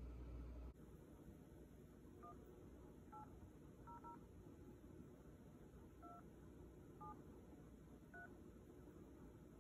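iPhone keypad touch tones as a phone number is dialed: seven short, faint two-tone beeps at uneven intervals, one for each digit pressed.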